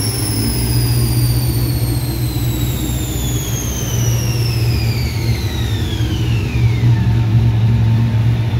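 Supercharged Chevy SS LS3 V8 on a chassis dyno coasting down after a pull. The engine runs under a high whine that falls smoothly and steadily in pitch as the rollers and drivetrain slow, and the whine fades out about seven seconds in.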